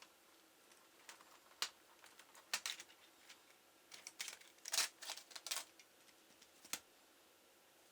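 Irregular light clicks and taps in small clusters with pauses between, the loudest a bit under five seconds in: small plastic and metal laptop parts being handled.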